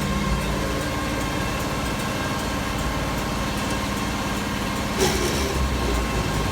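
Tractor diesel engine running steadily while pulling a John Deere 567 round baler through hay. About five seconds in, a louder grinding noise starts.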